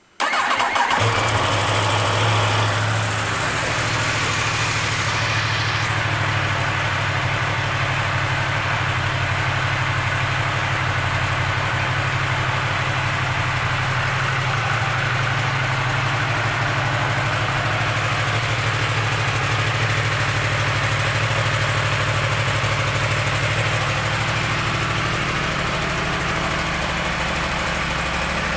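2016 Yamaha YZF-R1M's crossplane inline-four engine starting up and then idling steadily. It runs a little faster and louder for the first couple of seconds before settling.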